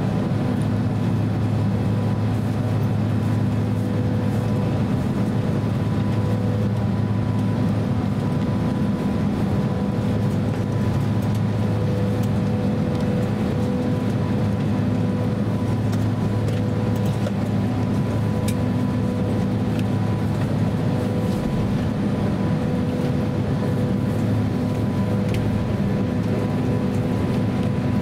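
Steady cabin noise inside a Boeing 767-300 taxiing on its twin engines at idle: an even low rumble with a steady mid-pitched whine over it.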